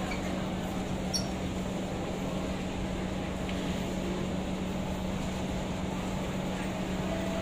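Steady hum of a stationary SMRT C151 metro train standing at a platform with its doors open, with a light click about a second in.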